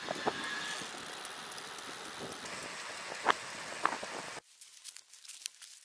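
Wind and road noise of a bicycle ride picked up by a camera riding along, with a few sharp clicks. It cuts off abruptly about four seconds in, leaving a quiet background with faint scattered ticks.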